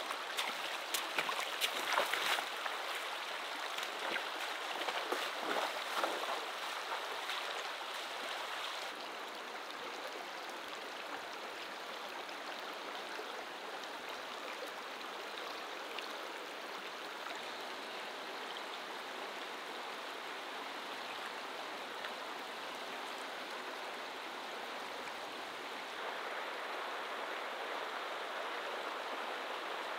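Shallow river running over rocks and stones: a steady rush of flowing water, with many sharp ticks over the first several seconds. The water sound shifts slightly about nine seconds in and again near the end.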